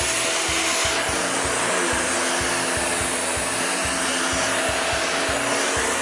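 Shark NV680 Powered Lift-Away upright vacuum cleaner running on carpet: a steady rushing whine, with regular low thuds about three times a second underneath.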